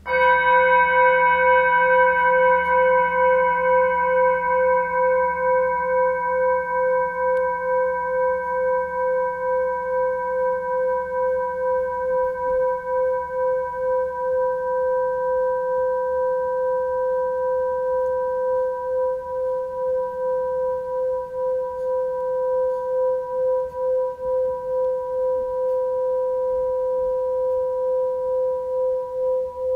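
A meditation bell struck once, ringing on in a long, slowly fading tone with a gentle pulsing wobble. Its higher overtones die away within the first few seconds, leaving two steady tones.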